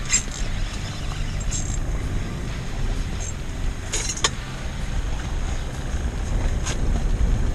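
Steady low rumble of wind buffeting the ice-fishing shelter and the microphone, with a few light, sharp ticks from the rod and gear being handled.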